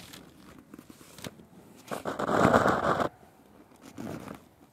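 Rustling, scraping noise on the camera's microphone as it is handled close to the car's tyre: a loud rush lasting about a second, then a shorter, fainter one near the end.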